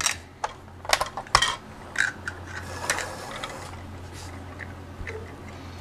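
Plastic toy backhoe being worked by hand: its arm and bucket clicking and knocking as they are moved. There are a handful of light clicks in the first three seconds, then quieter handling.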